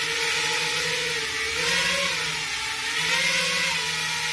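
Small quadcopter's four motors and propellers whirring steadily as it lifts off and hovers, the pitch swelling briefly twice as the throttle is worked.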